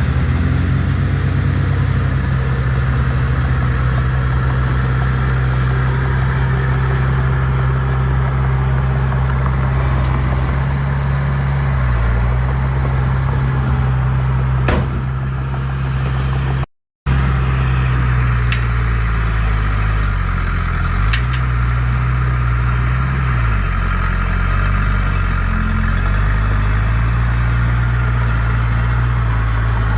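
Heavy diesel engine of earthmoving equipment running, its engine speed dipping and rising a few times, with a few light clicks. The sound cuts out completely for a moment about halfway.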